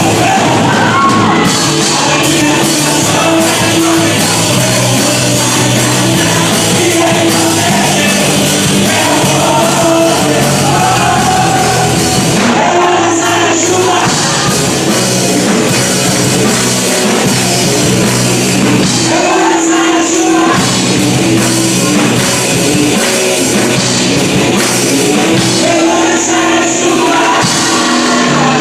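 A live worship band playing a loud, rock-style song, with singing over it.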